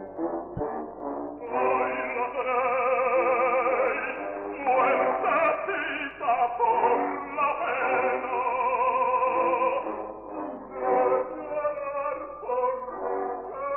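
Operatic baritone singing long phrases with a wide vibrato, in a dull-sounding old recording with no high treble.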